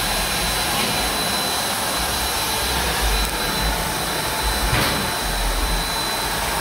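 Pet grooming blow dryer running steadily: a loud, even rush of air with a thin high whine, and a short click near the end.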